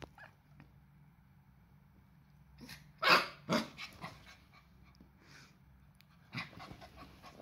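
Cardigan Welsh Corgi puppy giving two short, sharp barks about three seconds in, with a few fainter yips later, between stretches of quiet.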